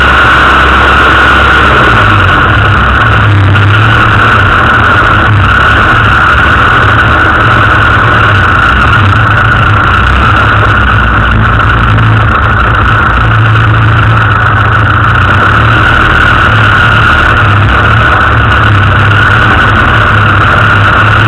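Off-road 4x4's engine running steadily and loudly, with no clear revving up or down.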